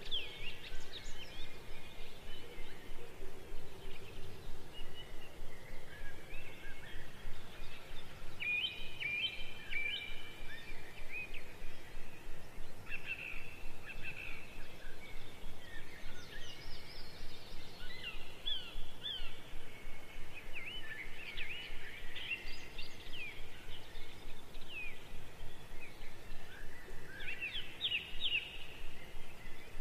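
Small birds chirping in the background: many short, quick calls that overlap and come in thicker bunches now and then.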